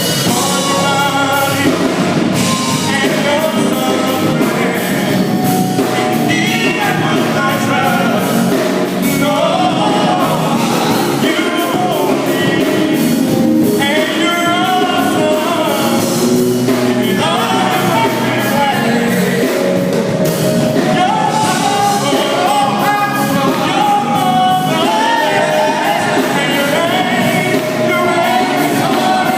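Live gospel song: a male lead singer sings over steady band accompaniment with drums.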